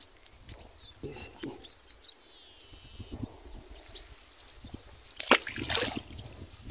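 A short splash in shallow ditch water about five seconds in, from a small traíra being let go back into the water. Before it, only soft handling noises.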